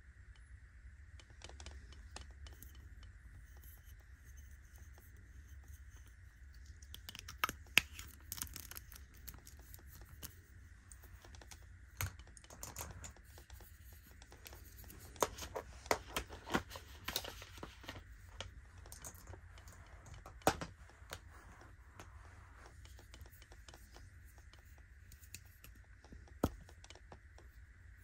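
Fingers handling makeup products: a gold metal lipstick case and other cosmetic tubes and containers tapped, turned and clicked. Soft taps and scratches are scattered through, with a few sharper clicks, most of them bunched together in the middle. A faint steady hiss runs underneath.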